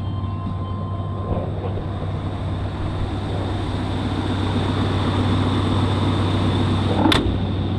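Vehicle engine running as the vehicle is driven, a steady low hum under a rushing noise that grows gradually louder. A single sharp click sounds about seven seconds in.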